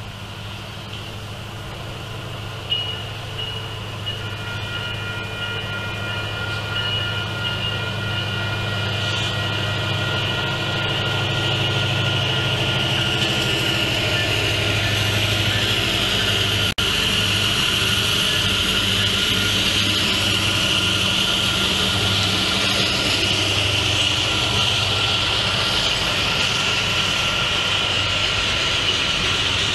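Diesel freight train approaching and passing: the locomotives' low engine hum gets louder over the first dozen seconds, then gives way to the steady rumble of the freight cars rolling over the rails, with a steady high tone riding above it.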